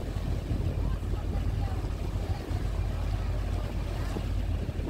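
Steady low rumble of a passenger boat's engine, with propeller wash churning the water alongside.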